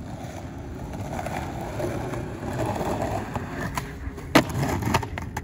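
Skateboard wheels rolling over rough concrete, then a sharp tail pop for a kickflip a little before four seconds. About half a second later comes a loud clack as the board comes down off the drop, and rolling goes on after it.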